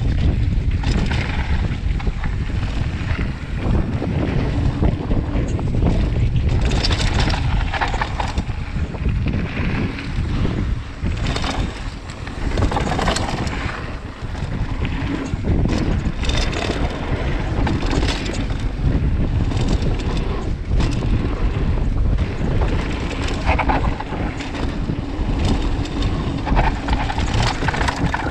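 Wind rumbling on the camera microphone as a mountain bike rolls fast down a dirt and gravel trail, with tyre crunch and frequent rattles and knocks from the bike over bumps.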